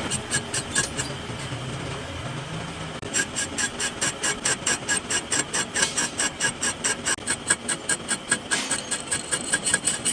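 Metal lathe work: a rapid, regular metallic ticking, about three to four ticks a second, over the steady hum of the machine. The ticking comes briefly at the start, pauses, then runs evenly from about three seconds in.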